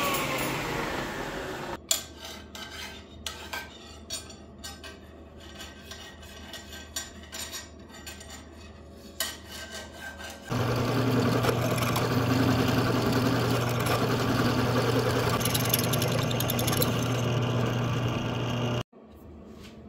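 A table saw's blade coasts down with a falling whine, then aluminum strip is handled with light clicks and rubs. About ten seconds in, a drill press starts and runs steadily with a low hum over an aluminum block clamped in its vise, and stops suddenly near the end.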